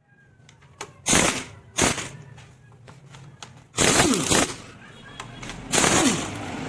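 Impact wrench fired in four short bursts, spinning up and down with a hammering rattle as it loosens the bolts of a scooter engine being stripped down.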